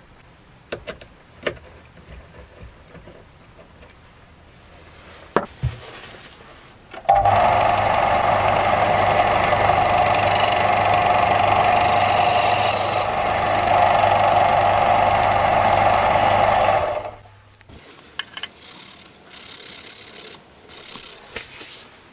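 Bench disc sander running for about ten seconds, starting suddenly about seven seconds in and cutting off near 17 s, as the end of a turned mahogany knife handle is sanded on its abrasive disc: a steady motor hum under a grinding rasp. Before and after it, a few light clicks and knocks of handling.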